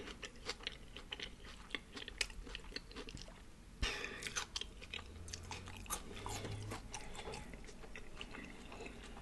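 Close-miked chewing of a birria and cheese pupusa: soft, irregular mouth clicks and smacks.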